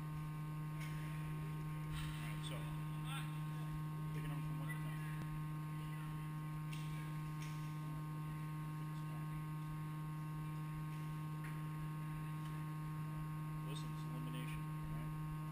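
A steady low electrical hum, with a fainter second tone above it, that holds unchanged throughout.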